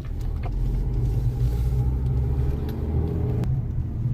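Motor vehicle driving along a road: a steady low engine and road rumble, with a sharp knock about three and a half seconds in.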